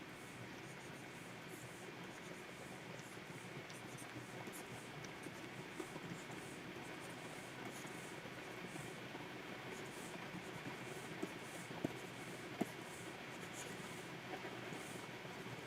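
Stylus nib scratching in short strokes across a Wacom 24 Pro pen tablet, over a steady hiss, with two sharp taps a little under a second apart about twelve seconds in.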